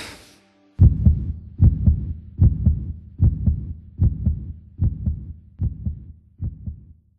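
Heartbeat: slow, regular double thumps (lub-dub), about one beat every 0.8 seconds, growing steadily fainter toward the end. A short swish fades out just before the beats begin.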